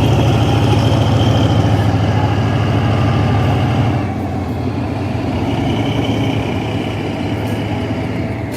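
Diesel locomotive engine running with a steady low drone as the train moves off. The drone weakens about halfway through.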